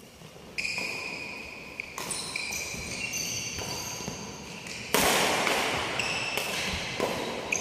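Badminton doubles rally on a wooden sports-hall floor: sharp racket strikes on the shuttlecock every second or so, echoing in the hall, mixed with high squeaks from players' shoes. The loudest hit comes about five seconds in.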